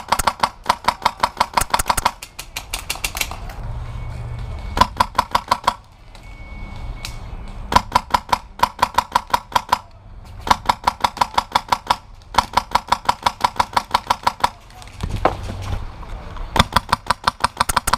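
HPA-powered VFC Avalon airsoft rifle firing rapid strings of shots, several strings of a second or two each with short pauses between.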